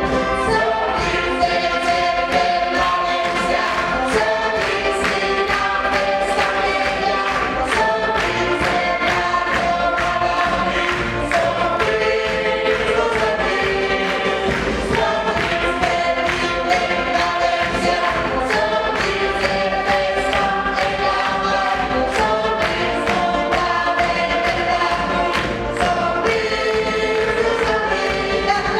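A choir singing a song over instrumental music with a steady beat.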